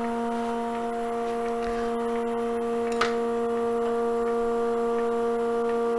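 Steady electric machine hum with an even, unchanging pitch, and a single small click about three seconds in.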